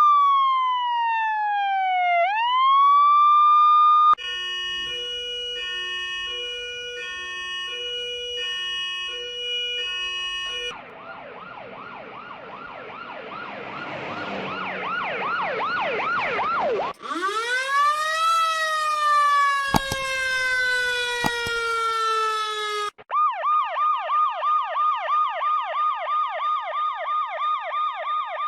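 A string of electronic emergency-vehicle sirens (police, ambulance and fire truck) that switches pattern every few seconds. First a wail falls and rises back, then an alternating two-tone hi-lo. Next comes a yelp that speeds up, then a wail that rises quickly and falls slowly, broken by two clicks, and finally a fast yelp of about three or four cycles a second.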